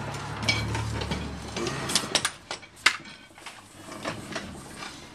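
Loose metal parts clinking and clattering against each other, with a few sharp metallic knocks about two to three seconds in.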